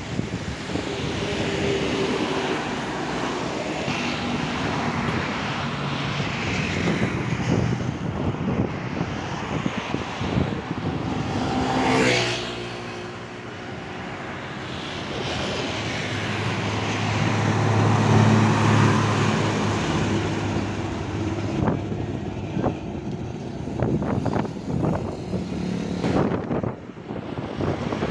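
Steady highway traffic passing close: cars, motorcycles, trucks and buses. One vehicle rushes past about twelve seconds in, and a heavy vehicle's deep engine drone is loudest around eighteen seconds.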